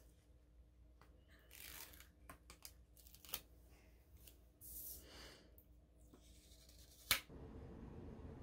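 Faint rustling of paper stickers being peeled from their sheet and pressed onto a paper planner page, with a few light clicks and taps and one sharper tap about seven seconds in.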